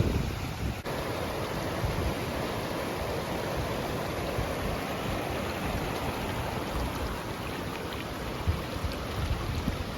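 A small creek running over rocks: a steady rush of water. In the first second, wind rumbles on the microphone, then it drops away.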